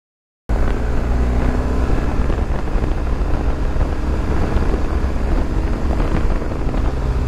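BMW R 1250 GS's boxer-twin engine running steadily while riding, with wind rushing over the microphone; it cuts in about half a second in after a brief silence.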